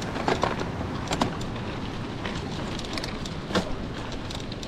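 Steady rush of a shallow mountain stream, with a few sharp clicks and knocks from mountain bikes at the crossing.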